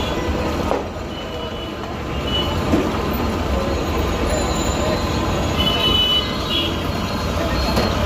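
Busy roadside traffic noise: a steady low rumble of engines, with a few brief high-pitched tones.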